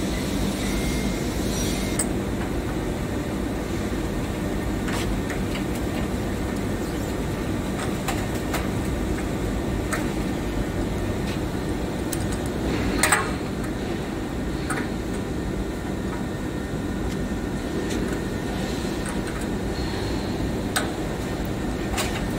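Steady low machine hum with a few short, sharp metallic clinks of a wrench working the flange bolts on a diffusion pump body, the loudest about halfway through.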